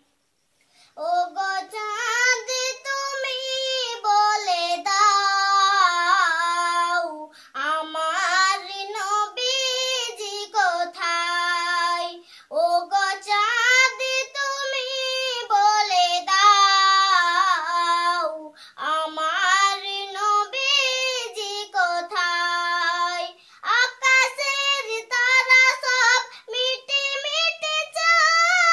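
A young girl singing a Bengali naat, an Islamic devotional song, unaccompanied, in long gliding phrases with short breaks between them.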